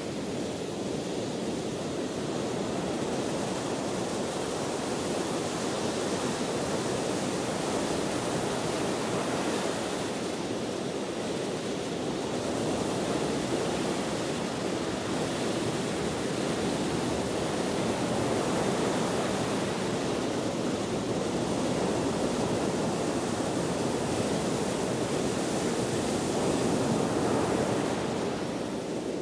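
Ocean waves washing onto a shore in wind: a continuous rushing surf that swells and eases slowly, a little louder near the end.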